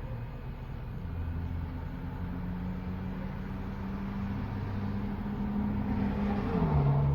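Car engine running with a steady low hum; about six and a half seconds in, its pitch drops and the sound grows louder.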